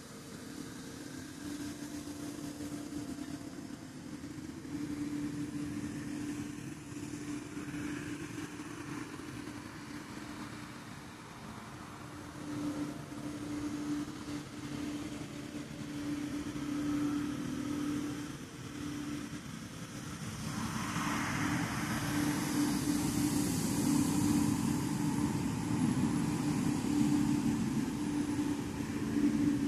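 Road traffic with a steady low hum. A vehicle passes, growing louder about two-thirds of the way through.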